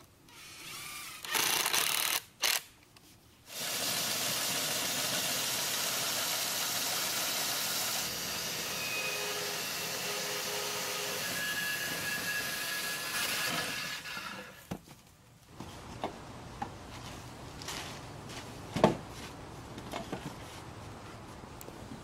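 A cordless drill drives a screw in two short bursts. Then a homemade wooden band sawmill cuts through a log for about ten seconds, played back four times faster, as a steady loud noise that stops suddenly. A few scattered knocks follow.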